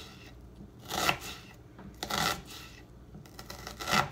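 Kitchen knife slicing through a red onion onto a plastic cutting board, three slicing strokes about a second apart.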